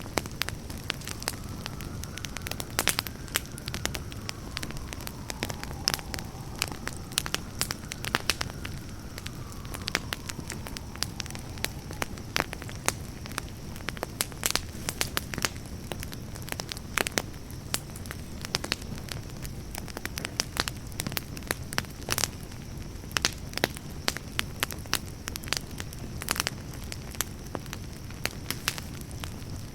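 Campfire burning with a steady low rumble and many irregular sharp crackles and pops from the wood.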